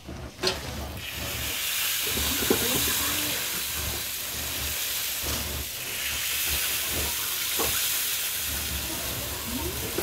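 Takoyaki batter sizzling as it is poured from a batter dispenser into the hot cast-iron takoyaki pan's cups. The hiss comes up about a second in and swells again about halfway through.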